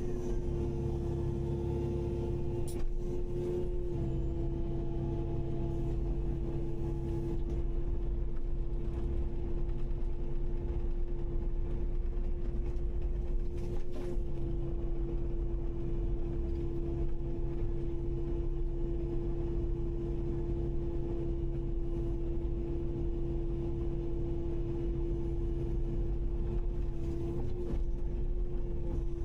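Kubota KX080-5 excavator's diesel engine running steadily, with a constant whine over a low rumble and a couple of faint knocks.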